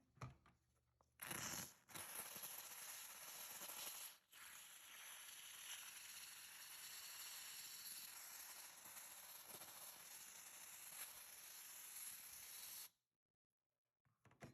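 Handheld steamer blowing steam into a refrigerator's clogged defrost drain line to clear it, a steady hiss that drops out briefly about four seconds in and cuts off abruptly near the end.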